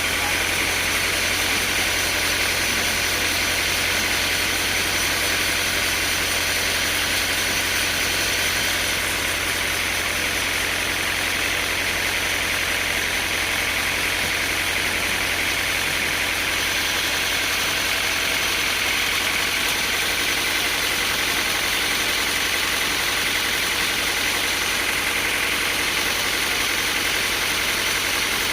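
Sawmill machinery running at a steady, unchanging drone, like an engine idling, with no cuts or strikes.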